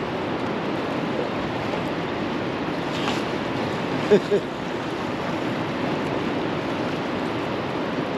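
Steady rush of turbulent river water and wind in the tailwater below a dam, with two short pitched squeaks close together about four seconds in.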